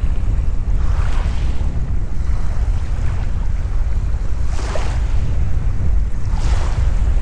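Wind buffeting the microphone with a steady low rumble, and small waves washing onto the sand with a brief hiss every second or two.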